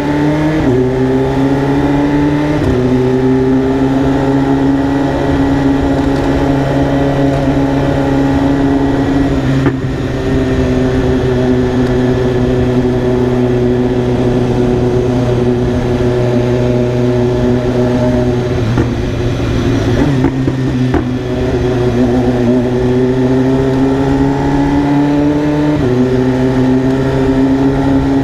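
BMW S1000RR's inline-four engine running under way. The engine note steps down at gear changes in the first few seconds, holds fairly steady, then dips and climbs again in the last third.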